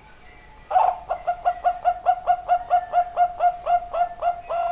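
Zebra dove (perkutut) cooing: a fast, even run of short hooked notes, about four or five a second, starting a little under a second in and closing with a longer drawn note near the end.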